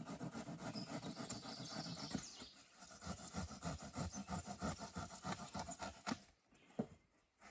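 Fast, rhythmic scraping strokes with a squeaky, rubbing edge, like sawing or rasping, that stop about six seconds in; a couple of faint clicks follow.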